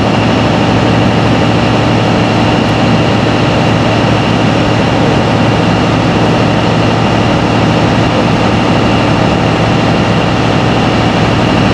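Steady, unchanging drone of a running engine or machine, with a constant low hum.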